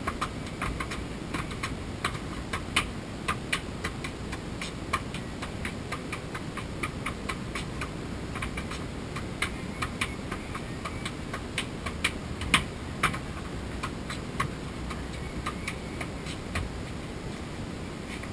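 A football being juggled: irregular short taps as the ball strikes the feet, knees and head, about one or two a second, over a steady low background rumble.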